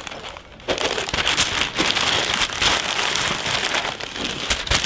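Newspaper being crumpled and folded by hand around a purchase as it is wrapped: a dense crackling rustle of paper that starts about half a second in.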